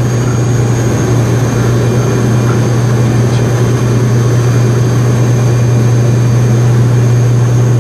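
Fokker 50 turboprop airliner heard from inside the cabin on final approach: a steady, loud propeller and engine drone with a constant low hum and a faint high whine above it.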